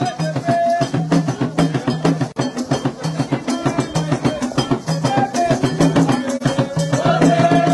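Vodou ceremonial drumming, fast and dense, with the dancing crowd singing over it; the singing swells near the end.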